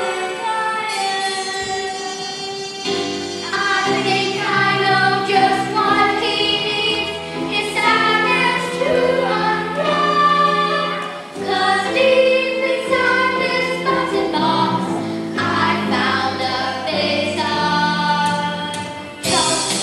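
A children's choir singing a song together over a musical accompaniment.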